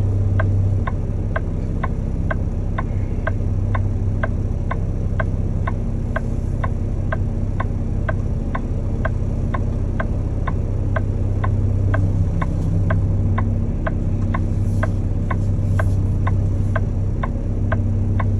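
Semi truck's indicator flasher ticking evenly, about two ticks a second, over the steady low hum of the truck's diesel engine, heard inside the cab.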